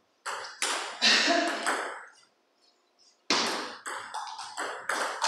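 Table tennis balls clicking off paddles and table tops in rallies: a few hits, a short pause about two seconds in, then a quick run of about three hits a second.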